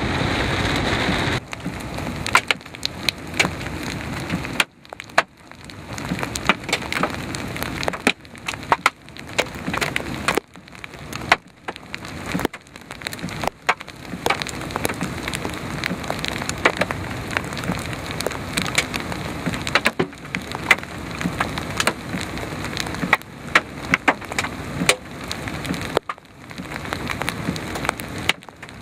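Hailstones coming down, striking in irregular sharp cracks and knocks of uneven strength over a steady patter. About a second in, a louder steady rush from inside a moving car cuts off.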